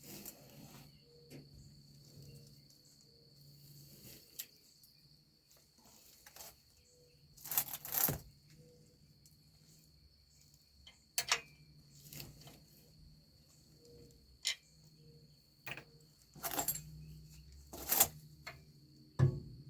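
Scattered metallic clinks and knocks from tools and brake parts being handled during semi-trailer brake work, a few louder clanks among them. A faint steady high-pitched tone runs underneath.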